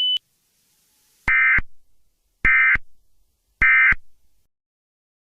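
Emergency Alert System end-of-message signal: three short, identical digital data bursts about a second apart, marking the end of the alert. A steady high tone cuts off just as it starts.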